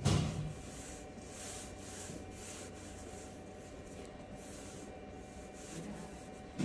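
A fingertip tapping and brushing on a tablet's glass touchscreen while typing, a string of soft, light taps a few tenths of a second apart, after a single thump at the very start.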